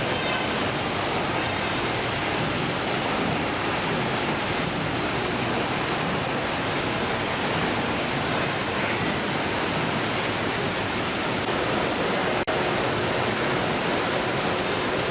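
Steady rushing noise, even and unbroken apart from a split-second dropout about twelve seconds in.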